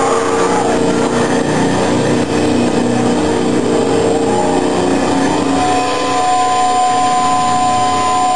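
Live heavy rock band playing loud, heavily distorted music. From about five and a half seconds in, steady held high tones ring over the wash.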